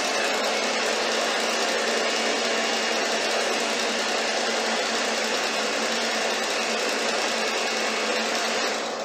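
Electric stand mixer running steadily, its motor humming as the beaters whip the coconut ice cream mixture. Near the end it is switched off and the motor winds down.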